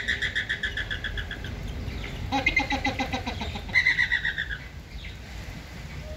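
A flock of flamingos calling: three bursts of rapid, chattering calls, the middle one lower-pitched.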